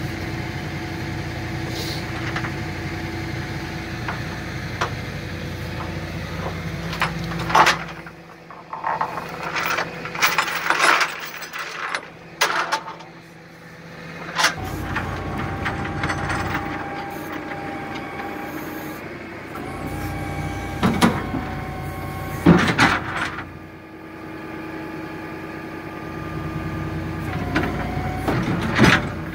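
Tilt-and-load flatbed tow truck's engine running with a steady hydraulic whine while the tilting deck and winch are worked to load a 20 ft steel shipping container, broken by loud metal clanks and bangs. The low engine sound drops away for several seconds about a third of the way in, then comes back.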